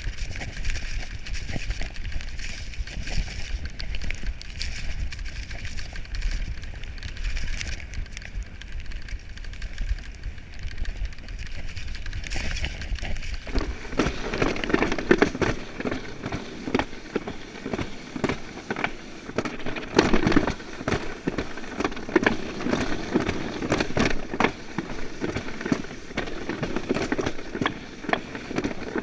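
Specialized Demo 7 mountain bike rolling down a wet gravel track, heard from its handlebar camera as a deep rumble with scattered rattles. About halfway through this gives way to a summer toboggan sled running down its chute: a rumble with many sharp clicks and clatters.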